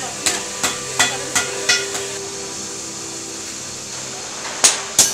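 Hammer striking metal: six sharp, ringing clangs about three a second in the first two seconds, then two more near the end, over a steady low hum.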